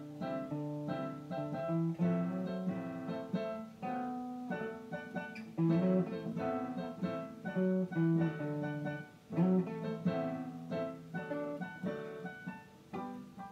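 Live instrumental music: an acoustic guitar and an electronic keyboard playing together, with no singing.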